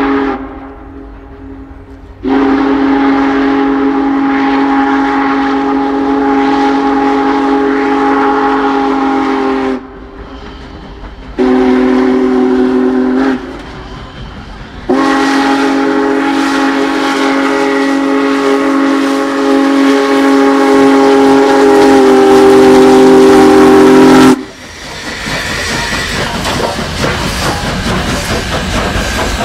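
Union Pacific Big Boy 4014's chime steam whistle sounding a chord. The end of one blast comes at the start, then a long blast, a short one and a long one, the pattern of the long-long-short-long crossing signal. After the last blast the locomotive and its train roll past, wheels clattering on the rails.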